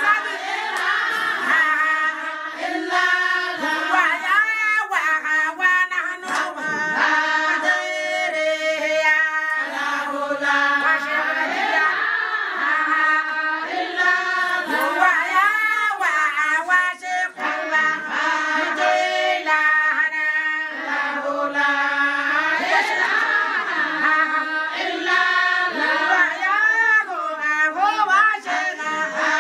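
A group of women singing together in a chant-like song, their voices sliding up and down in pitch, continuous throughout.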